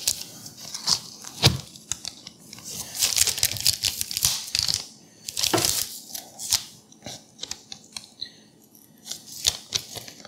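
Long knife cutting through lemon bars' shortbread crust on parchment paper: scratchy scraping and crackling of the blade through the crust, with parchment rustling and a scatter of sharp clicks.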